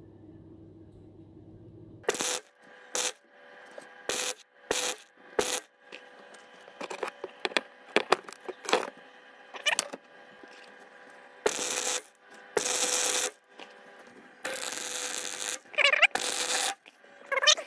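MIG welder arc crackling in short bursts as tack welds are laid to hold a wood auger bit onto a steel pipe, with a few longer runs of about a second each a little past the middle.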